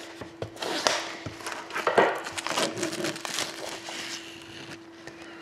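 Shrink-wrap plastic being cut and torn off a sealed cardboard card box: a run of crackling and crinkling with sharp clicks, loudest about two seconds in and dying down near the end.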